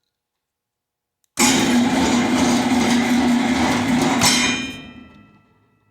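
Battery-powered electric motor of a power cord reel running for about three seconds, humming steadily and rattling loudly against the tabletop it sits on, then winding down.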